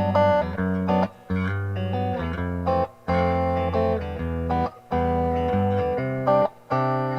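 Dean C350F electric guitar played through a Crate CR-280 150-watt amplifier on its clean sound. Ringing chords and notes, each phrase cut off briefly about every two seconds.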